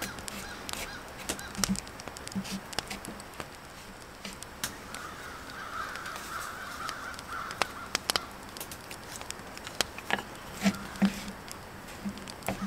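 Wooden spoon stirring bread dough in a carved wooden bowl: irregular small clicks, knocks and scrapes of wood on wood. A rasping sound runs for about two seconds midway.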